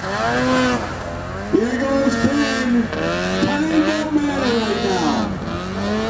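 Snowmobile engine revving under load on a steep snow climb, its pitch rising and falling again and again, about once a second, as the throttle is worked.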